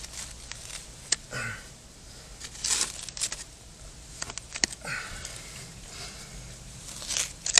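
Digging by hand in hard-packed dirt around a buried glass bottle: irregular scrapes and crumbling soil with scattered sharp clicks, the loudest scrape near the end.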